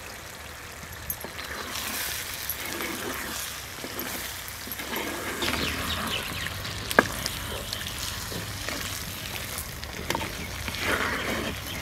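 Prawn masala curry sizzling in a hot pot while a wooden spatula stirs and scrapes through it, with one sharp knock against the pot about seven seconds in.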